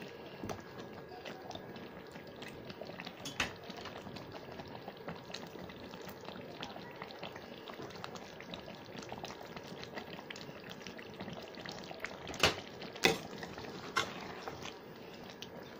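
Thick tomato-based chicken masala gravy simmering in a pan, bubbling with a steady run of small pops and crackles. Near the end a few sharper knocks come as a spatula stirs against the pan.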